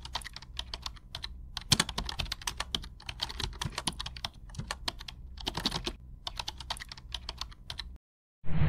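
Computer keyboard typing: a quick, irregular run of key clicks with short pauses, over a low steady hum, stopping shortly before the end.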